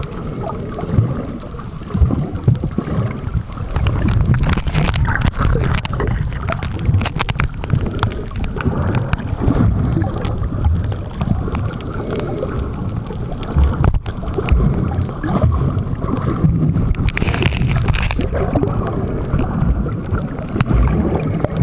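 Low, steady boat rumble with water gurgling and occasional knocks, heard from below the waterline.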